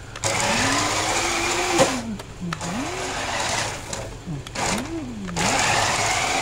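Electric motor and drivetrain of a toy-grade RC drift car, a Jada Elite RC Mustang, running on a tile floor. The whine rises and falls in pitch several times as the throttle is worked on and off, over a steady rasping hiss.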